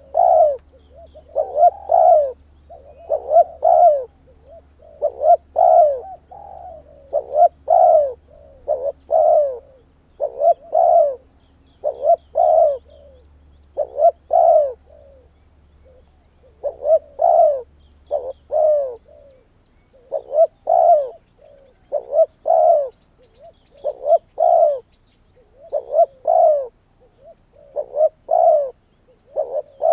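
Spotted dove cooing over and over in short groups of two or three notes, about one group a second. This is the male's call used as a decoy to draw wild doves in.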